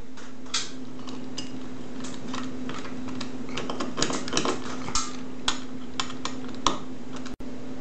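Hand screwdriver driving a long mounting screw through a ceiling fan's metal support bracket: scattered small metallic clicks and scrapes as the screw turns and the bracket shifts, over a steady low hum.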